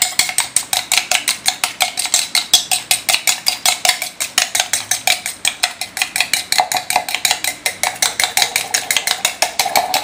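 Raw egg with chopped onion and spices being whisked fast with a metal utensil in a small stainless steel bowl: quick, even clinking of metal against the bowl, about seven strokes a second. The eggs are being beaten until frothy for a soft, spongy omelette.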